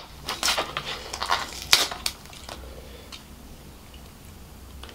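Paper wrapping crinkling and rustling as it is unfolded and rolled by hand: a run of crackles over the first two seconds, the loudest just before the two-second mark, then only a few faint ticks.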